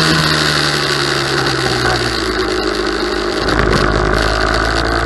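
Kart engine off the throttle, its note falling steadily as the kart slows. About three seconds in it fades into a low rumble with wind and tyre noise.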